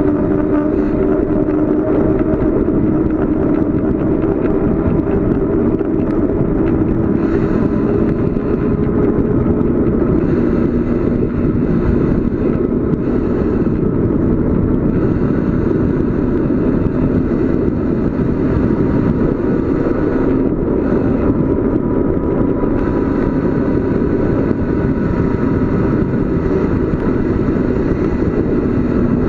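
Steady loud rush of wind and road noise from riding a bicycle downhill, with a faint steady hum running through it.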